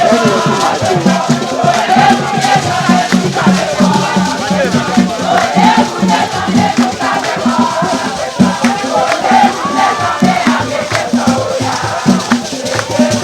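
Jama: a crowd singing and shouting chants together over a steady drum beat of about three beats a second, with shaker-type percussion.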